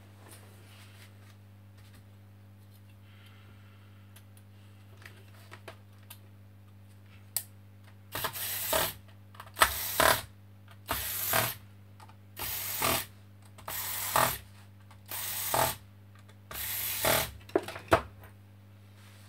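Corded electric screwdriver running in seven short spins, about one every second and a half, driving in the screws that hold a laptop's heatsink and fan assembly onto its motherboard. A few light clicks of handling come before.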